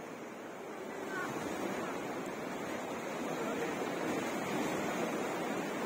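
Black Sea surf washing ashore: a steady rush of waves that swells over the first second or so.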